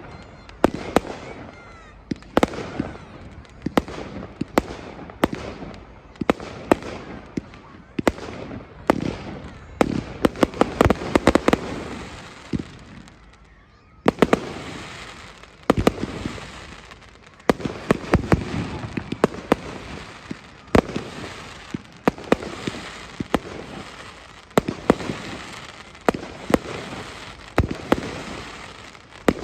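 Aerial fireworks display: shell bursts going off in quick runs of sharp bangs, some with crackle, easing off briefly about halfway through before the bangs pick up again.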